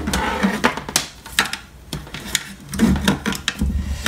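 A USB cable being pulled and threaded through a 3D-printed plastic scanner base, with irregular light clicks, taps and rustles of cable and plastic being handled.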